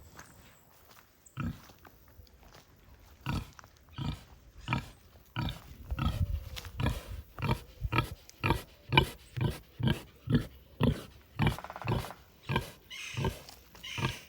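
Pigs grunting in a steady series of short grunts, sparse at first and then about two a second through most of the stretch.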